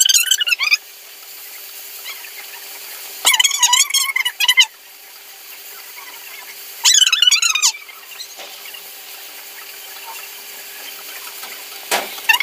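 Chopped onions sizzling steadily in a pot as they are stirred with a wooden spatula. High-pitched wavering squeals break in three times, each about a second long, and again near the end.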